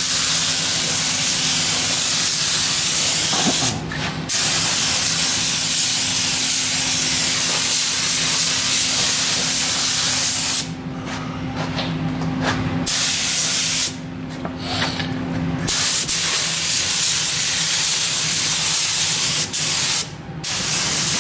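Gravity-feed spray gun hissing steadily as compressed air atomises paint onto the car's body panels. The hiss cuts out briefly four times as the trigger is let off between passes.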